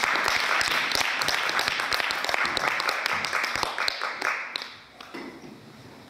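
Audience applauding, the clapping dying away about four and a half seconds in.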